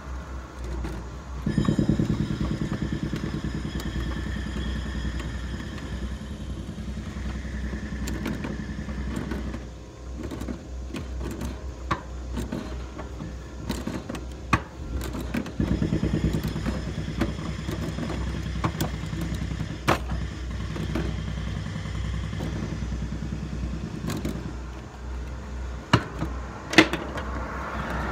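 A motor vehicle engine running, swelling twice for several seconds over a steady low hum, with scattered clicks and knocks of plastic irrigation fittings and clamps being handled and tightened, two sharper knocks near the end.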